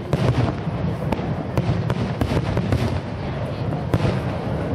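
Aerial fireworks shells bursting in quick succession: a rapid string of sharp bangs and crackles over a continuous low rumble.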